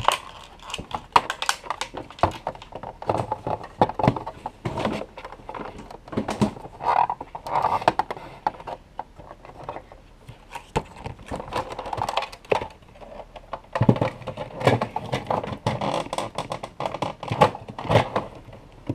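Small plastic toys and playset pieces being handled: irregular clicks, taps and knocks, with some soft rustling between.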